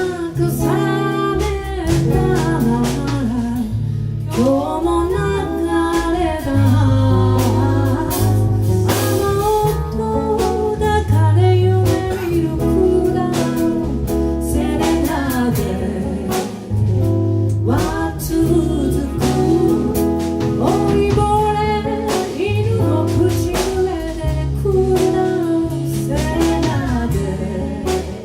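Live band playing a slow song: a sung or guitar melody over bass guitar and drum kit with a steady beat.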